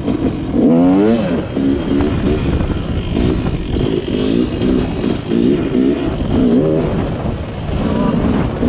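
Yamaha YZ250 two-stroke dirt bike engine being ridden on the trail, with a sharp rev about a second in and then a run of short bursts of throttle, each rising in pitch.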